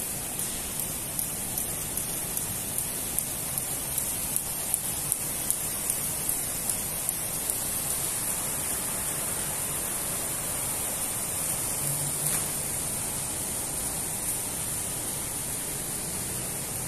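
Jump rope skipping: sharp ticks of the rope striking the floor, about two and a half a second, fading out about eight seconds in, over a steady rushing hiss.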